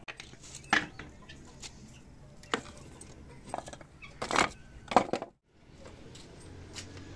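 Scrap pieces of timber knocking and clattering as they are gathered by hand into a metal basin: several separate sharp knocks, the loudest about a second in and again near the end.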